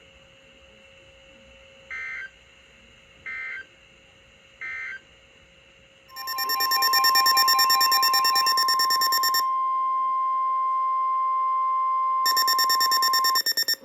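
NOAA Weather Radio alert signalling: three short data bursts of the SAME header, a warbling two-tone chirp, followed by the steady 1050 Hz warning alarm tone held for about seven seconds. A louder pulsing electronic alarm buzz sounds over the tone twice, marking the start of a new warning.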